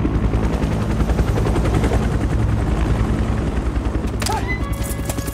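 Helicopter rotor beating steadily overhead, with one sharp crack about four seconds in.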